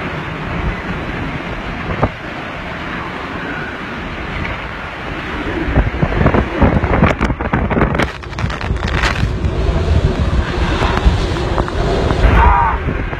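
Hurricane eyewall wind gusts blasting across the microphone, growing stronger about six seconds in. A few sharp knocks or rattles come through about seven to nine seconds in.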